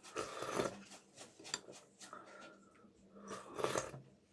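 Close-up eating sounds: noodles with sauce being slurped off a spoon twice, once right at the start and again about three and a half seconds in, with small mouth and cutlery clicks between.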